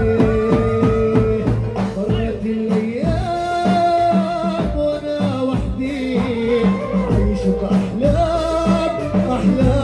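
Live dabke music: a male singer holding long notes into a microphone over a band, with a large tabl drum beaten with a stick in a steady dance rhythm.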